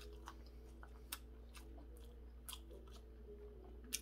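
Close-up mouth chewing of a bite of triangle kimbap, soft rice and seaweed, with wet smacking and small clicks. Sharper clicks come about a second in, at about two and a half seconds, and near the end.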